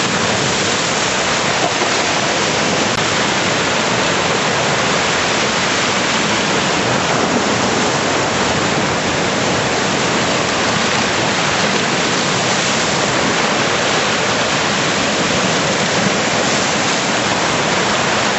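Arkansas River floodwater rushing through the open spillway gates of a lock and dam: a loud, steady, unbroken rush of turbulent water.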